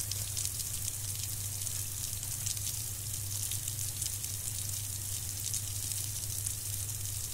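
Pressurised water jetting out of a small leak in a PVC water pipe, a steady hiss, with a steady low hum beneath it.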